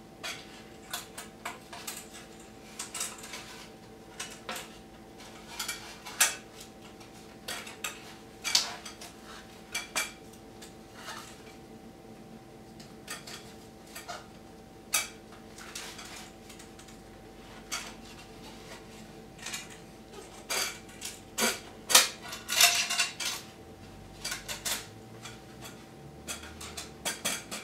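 Metal band clamps clinking and rattling as they are threaded through the holes of a carbon-fibre exhaust pipe guard: irregular light metallic clicks, busier and louder near the end, over a faint steady hum.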